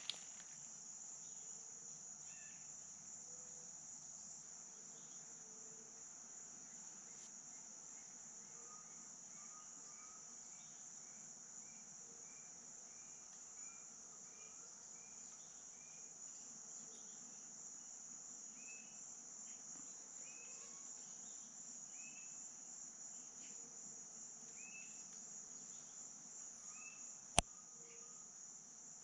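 Faint, steady high-pitched insect chorus, a continuous shrill drone, with scattered short chirps over it, some in an evenly spaced run in the middle. A single sharp click sounds near the end.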